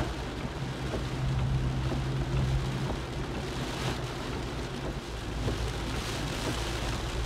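Rain on the car and tyres on the wet road, heard from inside the cabin, over a low steady hum from the moving car.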